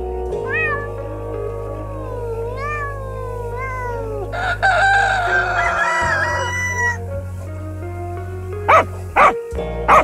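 Young goats bleating in several short calls that rise and fall in pitch, over steady background music. About four seconds in, a rooster crows once in a long call. Near the end come three short, loud calls.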